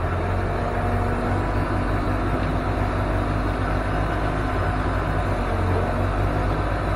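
Truck engine running steadily, a continuous low hum with no change in pitch.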